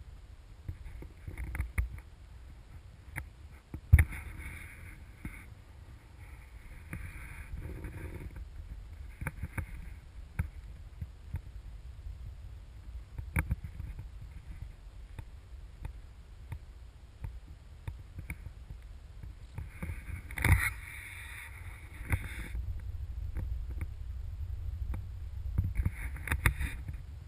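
Low wind rumble on a monopod-mounted GoPro's microphone as it is carried along, with sharp handling knocks and patches of rustling steps. The loudest knocks come about four seconds in and about twenty seconds in.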